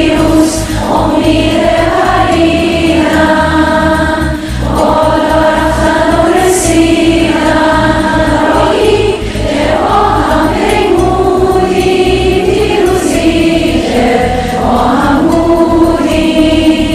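Music with choral singing in long held notes over a low accompaniment.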